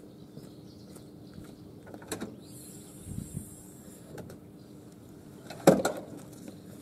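Citroën Saxo hatchback tailgate being unlatched and opened, then gear handled in the boot: a few clicks and knocks, with the loudest sharp knock near the end as a bag is lifted out. A faint steady hum runs underneath.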